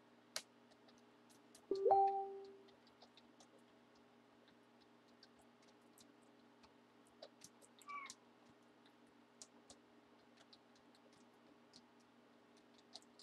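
Quiet room with a steady low hum and scattered faint clicks. About two seconds in comes a short tone that rises quickly and then holds for under a second, and a shorter, fainter one comes near eight seconds.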